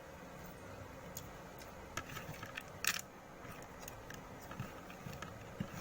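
A few light, scattered clinks of cutlery on a plate while eating, the loudest about three seconds in.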